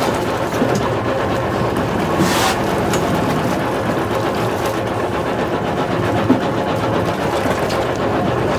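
A dive boat's engine running steadily, with water splashing about; a brief rush of splashing comes about two seconds in.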